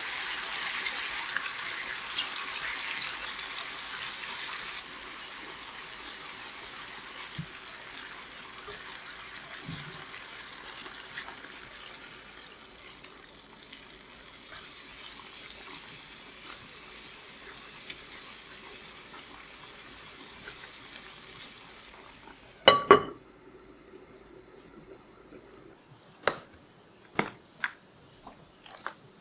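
Kitchen sounds: a soft, steady water hiss that slowly fades away, then two sharp clatters of kitchenware and a few light clicks near the end.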